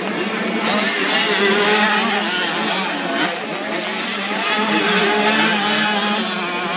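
Several 85 cc motocross bike engines revving at once, their pitches rising and falling over a steady low drone.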